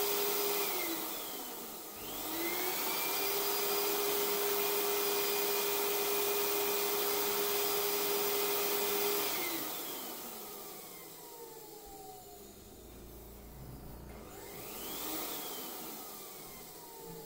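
Electric balloon pump running with a steady whine. It winds down about a second in, starts up again about two seconds in and runs steadily, then switches off near the middle, its pitch sliding down as the motor spins down. A fainter short whir, rising then falling, comes near the end.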